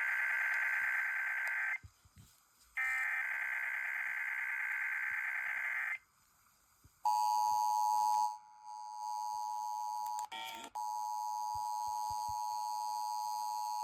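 Emergency Alert System test: two bursts of the raspy SAME header data signal, each about three seconds long with a gap of about a second between them. About seven seconds in, the steady two-tone EAS attention signal begins; it drops in level and cuts out briefly around ten seconds, then carries on.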